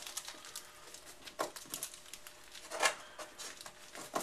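Thin plastic model-rocket parachute being rolled up by hand, with soft, scattered crinkling and rustling and a couple of slightly louder rustles.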